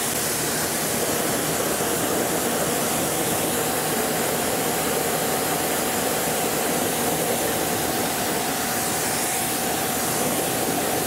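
Pressure washer spraying a steady jet of water onto a car wheel and tire, rinsing off the wheel cleaner: an unbroken hiss of spray with a steady whine under it.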